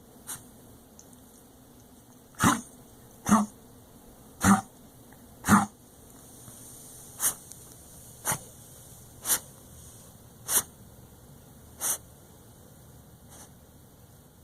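Border Collie–Australian Shepherd mix dog in a coughing fit: four loud coughs about a second apart, then five shorter, weaker ones at about one a second. It is a very bad cough that her vet put down to asthma and her owner suspects comes from congestive heart failure.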